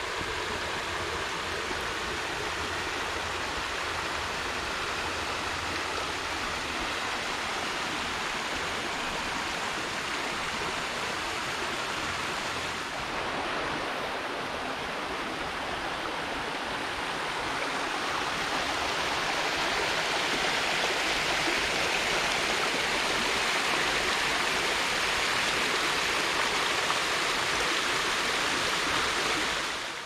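Shallow stream running over pebbles and rocks below a small waterfall: a steady rush of water that grows louder about two-thirds of the way in.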